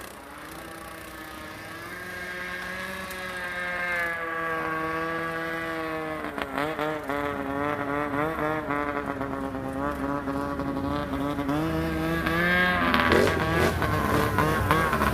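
ATV engine running under throttle, its pitch climbing gently at first and then wavering quickly up and down as the throttle changes, growing louder toward the end.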